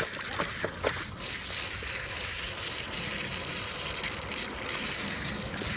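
Water running and splashing in an outdoor dog drinking fountain as a corgi drinks from its bowl, with a few short splashy clicks in the first second.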